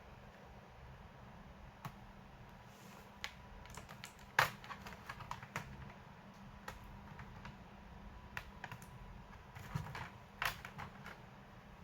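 Irregular light clicks and taps of hands working on a laptop, with one sharper knock about four and a half seconds in.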